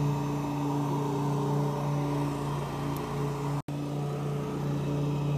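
Handheld electric heat gun running steadily: a constant motor hum with airy fan noise as it heats the adhesive behind a fork reflector. The sound cuts out for an instant about two-thirds of the way through.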